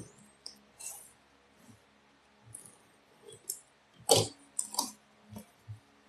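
A box and its packaging being opened and handled: a series of short clicks and rustles, the loudest about four seconds in.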